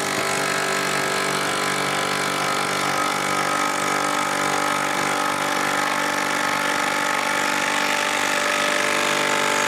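Wolf Ultimate 10.8 V cordless impact driver hammering a 4-inch screw into timber under heavy load, with no pilot hole drilled. Its rapid impacts merge into a steady pitched buzz that holds at an even level.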